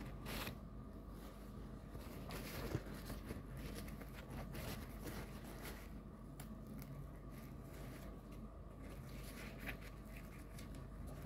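Paper towel rustling and crinkling in the hands as fingers rub pomegranate seeds in it to wipe off the pulp.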